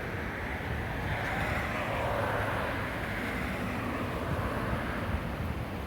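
Jet airliner's engines on landing approach: a steady rushing whine whose pitch drifts slowly lower as the plane passes, over a low rumble of wind on the microphone.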